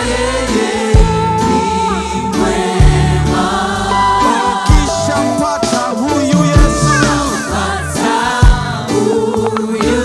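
Gospel worship song sung by a group of singers with a band, with bass and a heavy beat accent landing about every two seconds.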